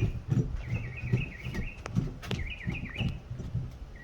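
A small songbird singing short warbling chirps that repeat about once a second, over low bumps and a few sharp clicks of handling noise.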